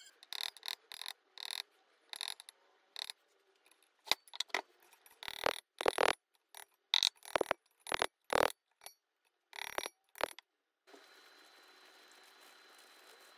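Hammer striking a thin perforated metal bracket from an old blow torch against a metal block to straighten it: a series of sharp, irregularly spaced metallic taps and clanks that stop about ten seconds in. Only a faint steady hiss follows.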